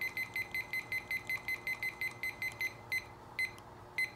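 Digital timer beeping as its buttons are pressed to set the time: a fast run of short high beeps, about six a second, for nearly three seconds, then three single beeps further apart.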